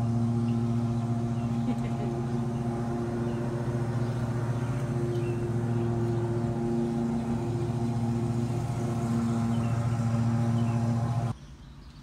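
A loud, steady low hum with a stack of buzzy overtones, which cuts off suddenly near the end.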